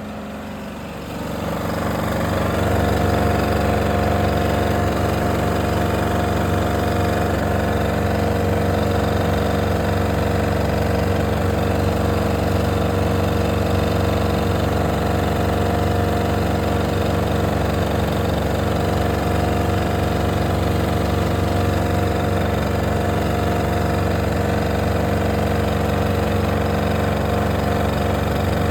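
An electric fan switched on about a second in, spinning up over a couple of seconds, then running steadily with a constant hum and rush of air.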